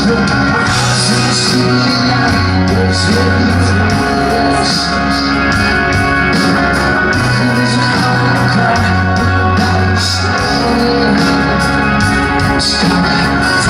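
Rock band playing live, with electric guitars, bass, drums and singing, recorded loud from the crowd.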